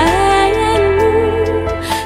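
Background music: a melodic line that slides up in pitch at the start and then wavers, over a steady low bass, with a few light percussive hits.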